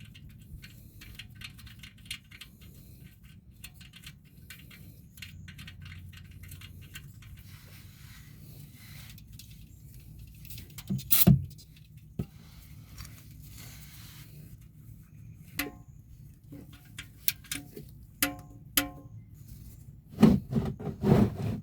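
Metal hand tools at work on a car's oil drain plug: quick ratchet-like clicking, then a loud clank about halfway through, a run of short ringing metal clinks and louder knocks near the end.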